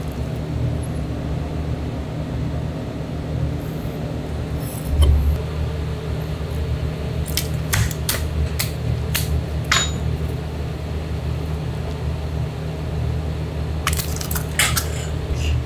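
Knife and fish being handled on a plastic cutting board: a low thump about five seconds in, then scattered sharp clicks and taps, over a steady low background hum.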